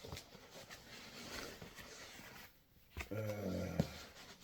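Faint rustling and crackling of packaging being handled, then, about three seconds in, a short low hum from a man's voice that ends in a sharp click.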